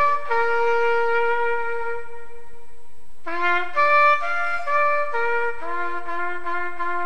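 Background music: a slow trumpet melody of long held notes, with a new phrase starting about three seconds in.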